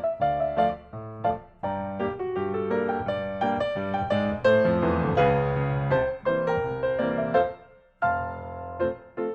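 Background piano music: a melody of quick notes over chords, with a short pause near the end.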